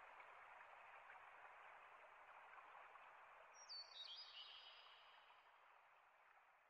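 Near silence: a faint steady hiss that slowly fades away, with one short bird chirp about four seconds in that drops in pitch and then holds briefly.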